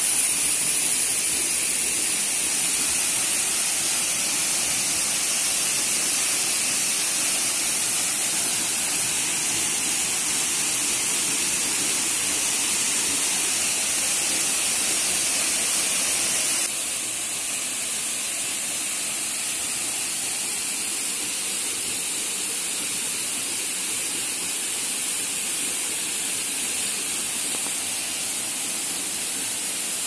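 Small waterfall pouring onto rocks: a steady rushing, splashing roar of falling water that drops a little in level about two-thirds of the way through.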